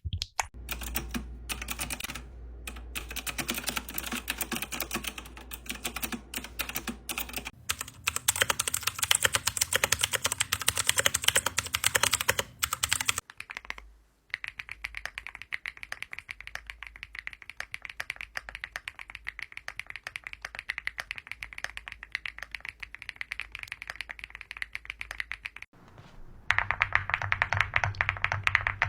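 Rapid typing on a series of different computer keyboards, each played for a stretch, with fast key clicks throughout. The click sound changes abruptly at each switch of keyboard, about 7, 13 and 26 seconds in, the last stretch the loudest.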